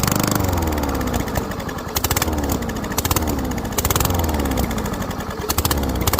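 Straight-piped lawn mower engine with its muffler and air box removed, running hard. Its pitch sags and picks up again about once a second, with bursts of sharp popping from the open exhaust.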